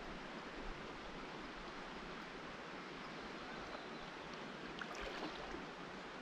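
Steady wash of river water flowing, an even rushing noise, with a few faint ticks about five seconds in.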